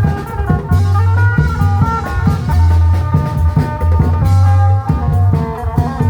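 Isan klong yao (long drum) band playing live: drums beat a steady rhythm under a melody line and a heavy, sustained bass.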